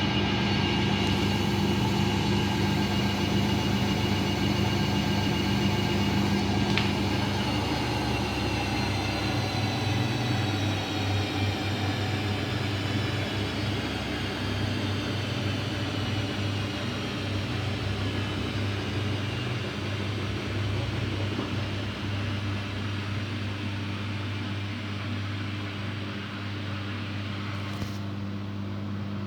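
Daewoo DWD-FT1013 washing machine spinning an unbalanced load: a steady motor and drum whine with several tones that slowly fall in pitch as the drum slows and the sound eases off. Near the end the high whine cuts out suddenly, leaving a low hum.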